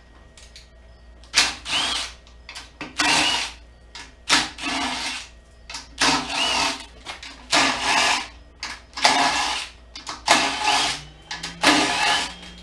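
Cordless drill/driver run in about eight short bursts, each a second or less with a rising whine, backing out the fasteners on a hybrid car battery pack.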